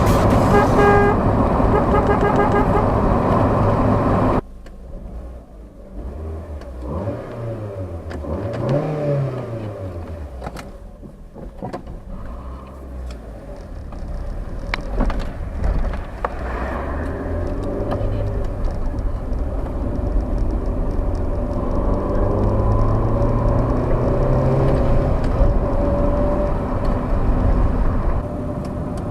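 Intro music for about the first four seconds, then it cuts to the MG ZS's stock 1.4-litre K-Series 14K4F four-cylinder engine. The engine is revved several times, its pitch rising and falling, and grows louder in the second half.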